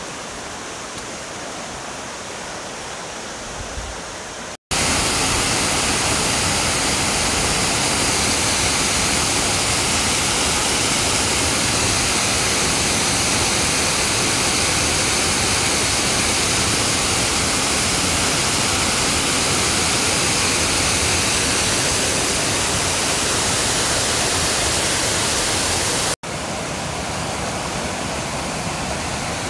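Waterfall cascade pouring steadily. The sound cuts out for an instant twice, about four and a half seconds in and again near the end, and is louder between the two cuts.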